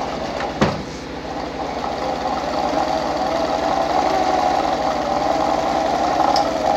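Pfaff 230 sewing machine running under treadle power to wind a bobbin: a steady, fast mechanical whir that grows louder over the first few seconds as it gets up to speed, with one sharp click about half a second in.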